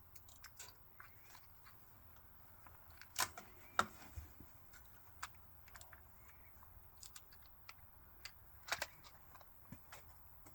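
Faint, scattered clicks and knocks of a .22 rifle and gear being handled between shots, with a sharper pair of clicks about three seconds in and another pair near the end.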